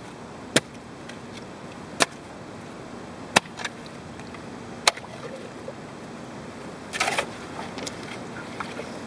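Shovel digging in a wet, stony hole: four sharp clinks about a second and a half apart as the blade strikes stones, then a short crunching scrape near the end.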